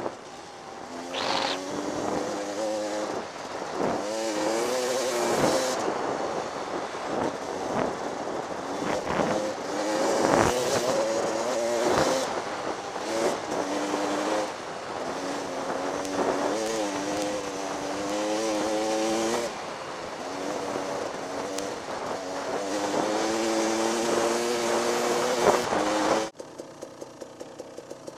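Dirt bike engine revving up and down as it rides through sand, with wind rushing over the microphone. About two seconds before the end it drops to an idle with evenly spaced pulses.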